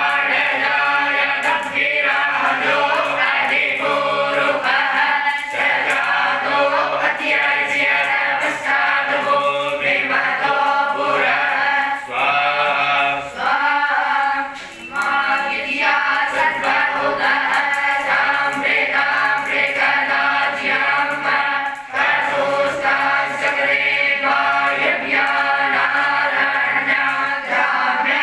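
A group of young gurukul students chanting Vedic havan mantras in unison, with short breaks for breath about 15 and 22 seconds in.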